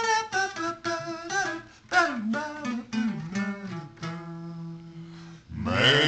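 Acoustic guitar playing with a voice singing along to it; the voice holds one long note about four seconds in.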